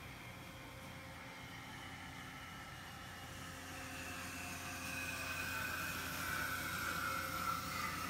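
A 1989 Amada HA-500 automatic horizontal band saw running, with a steady low hum. A whine rises in level from about halfway through and slides slowly down in pitch toward the end.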